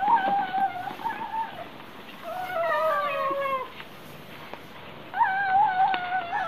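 Kitten meowing: three long, high, wavering cries, the middle one sliding down in pitch.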